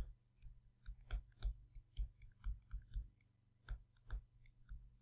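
Faint, irregular clicks and taps of a stylus on a tablet screen as words are handwritten, several a second, over a steady low hum.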